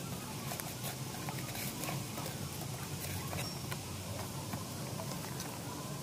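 Cardboard box inserts and plastic wrapping being handled and pulled apart, giving irregular small crinkles, taps and scrapes, over a steady low background hum.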